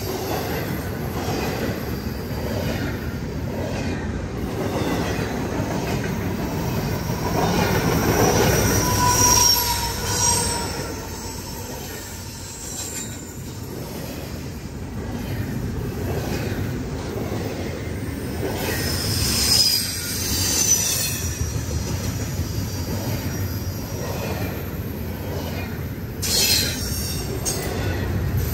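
CSX double-stack intermodal freight train passing close by: the steady rumble and rattle of container-laden well cars rolling over the rails, with wheel squeal rising about eight seconds in and again around twenty seconds in.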